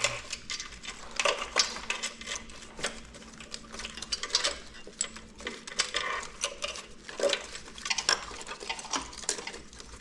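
A new motorcycle wiring harness being handled and threaded through the frame: its plastic connectors and wire bundles give off irregular light clicks, taps and rustles.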